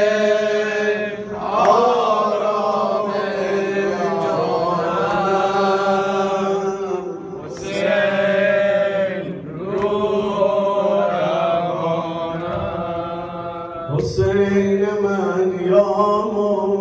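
A man chanting a slow Shia mourning lament (madahi), with long drawn-out notes in phrases a few seconds apart.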